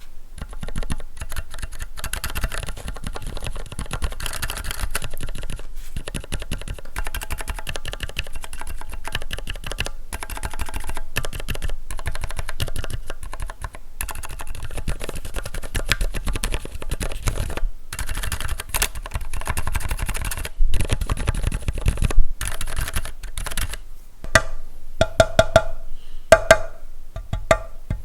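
Typing on a Keychron Q1 V2 aluminium-cased mechanical keyboard fitted with lubed Gateron Silent Red linear switches and PBT keycaps: a fast, continuous run of soft keystrokes. Near the end the typing gives way to slower, separate key strikes, each with a short ringing tone.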